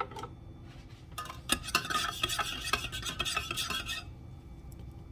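A spoon stirring coffee in a mug: a few separate taps, then about two seconds of rapid clinking against the sides.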